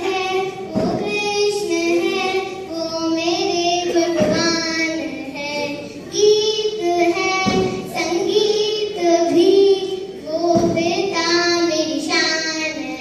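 A child singing a slow song in long, held notes. A thud falls about every three seconds.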